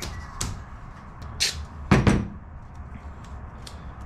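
Aluminium spar parts being handled and set down on a workbench: a few knocks and clicks, the loudest about two seconds in, over a steady low hum.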